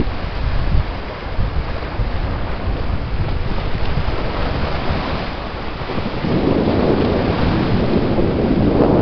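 Wind buffeting the microphone over choppy lake water, with waves washing in the background. The wind noise grows stronger about six seconds in.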